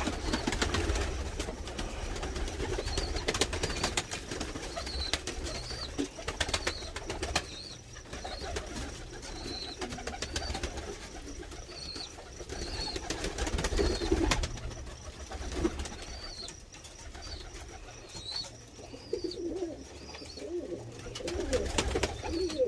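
A group of domestic fighting (tumbler) pigeons cooing while they feed, with many sharp pecking clicks and short high chirps repeating throughout. A steady low hum runs underneath.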